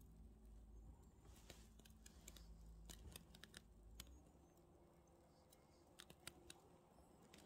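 Near silence with faint scattered dry clicks and crackles; a low rumble underneath stops about four seconds in.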